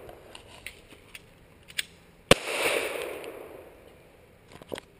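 A single 9mm pistol shot from a Glock 17 a little over two seconds in. The report echoes for over a second before fading. A few faint clicks follow near the end.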